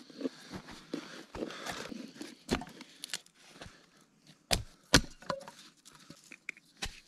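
A small hatchet splitting kindling sticks, giving several sharp wooden knocks; the loudest pair comes four to five seconds in. In the first couple of seconds a knife rasps as it shaves wood into curls.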